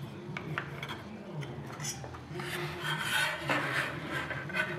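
Steel carpenter's square and steel ruler clinking and scraping against a wooden furniture panel as they are handled: a few light clicks, then a denser metallic clatter from about two seconds in.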